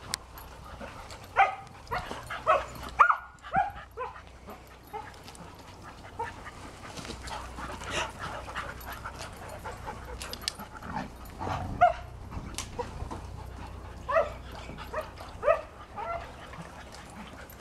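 Several dogs playing together, giving short barks and yips in scattered clusters: a run in the first few seconds, another around twelve seconds in, and more near the end.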